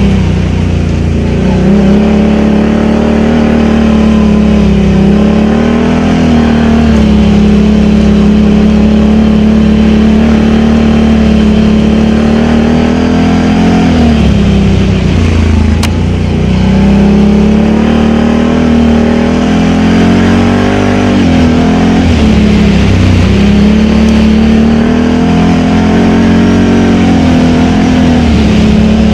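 Can-Am Outlander XMR 1000 ATV's Rotax V-twin engine running hard through dual slip-on exhausts. It holds a steady pitch for long stretches, and about four times the revs drop briefly and climb back as the throttle is eased off and reapplied.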